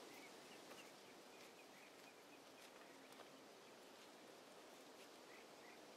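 Near silence: quiet outdoor ambience with faint, scattered short high chirps and a couple of soft ticks.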